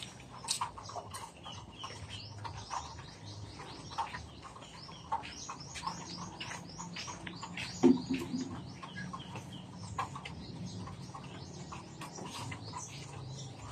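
Birds chirping: a dense run of short, high, falling chirps, with a single thump about eight seconds in.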